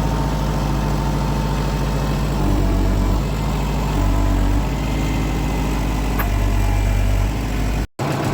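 Tractor engine idling steadily, its pitch stepping up and down slightly a few times. It cuts out for a moment near the end.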